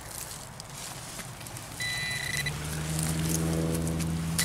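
Metal-detecting pinpointer giving a short, high, steady beep twice, about two seconds in and again at the end, as it is worked in the dug soil. Under it, a low steady engine hum fades in and grows louder from about two seconds in.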